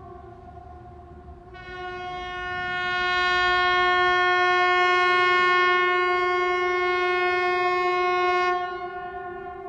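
A steady warning alarm tone holding one pitch throughout. About a second and a half in it swells louder and brighter, holds there, then drops back to a quieter level near the end.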